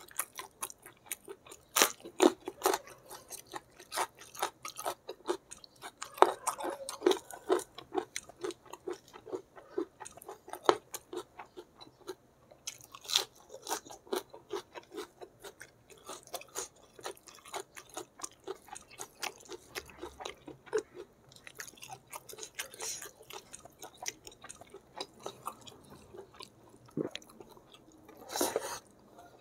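Close-miked chewing of a hand-eaten meal of spicy squid and rice: a steady run of wet mouth clicks and smacks with crisp crunches, and a louder noisy mouthful taken about a second before the end.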